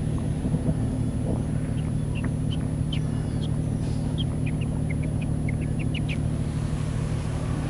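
Steady low hum made of several steady tones, with a dozen or so short, high bird chirps scattered through the middle.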